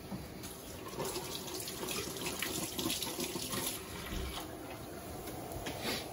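Shrimp-shell stock and melting butter simmering in a skillet, a steady bubbling with small pops that gets busier from about a second in for a few seconds, as the sauce reduces.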